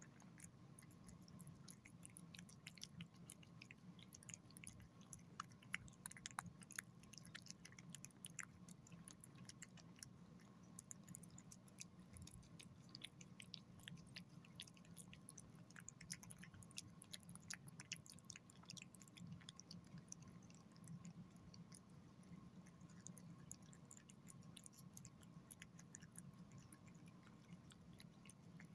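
Cat eating wet chicken pâté: faint, quick, wet chewing and lip-smacking clicks, irregular and continuous.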